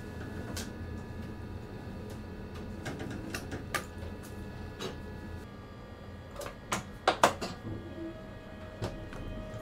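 Train cab interior: a steady low hum with scattered sharp clicks and knocks, the loudest a quick cluster about seven seconds in. Near the end a faint whine starts and slowly rises in pitch.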